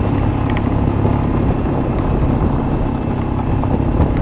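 Motor vehicle driving on a dirt road: steady engine hum with a continuous rumble of road noise.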